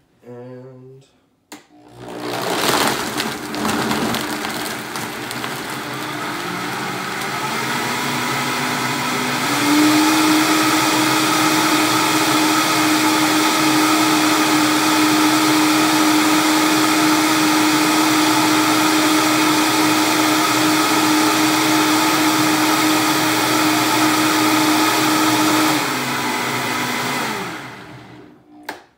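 Countertop blender crushing ice and fruit for a smoothie: it starts about two seconds in with rough knocking as the ice breaks up, and the motor's pitch climbs over the next several seconds. It then runs steady and loud, and winds down and stops near the end.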